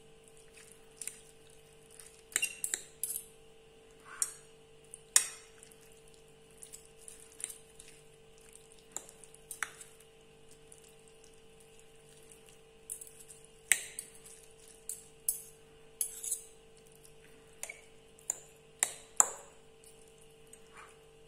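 Two metal forks clinking and scraping against a ceramic plate at irregular intervals as they pull fried haddock fillets apart into shreds, over a steady low hum.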